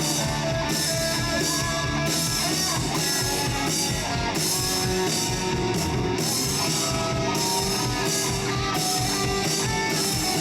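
Instrumental break of a rock band song: electric guitars and a drum kit playing with a steady beat, no singing.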